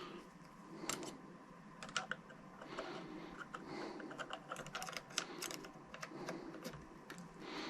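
Faint scattered clicks and light knocks from handling a cordless reciprocating saw's plastic body and controls, with a few sharper clicks about one and two seconds in. The motor is not running.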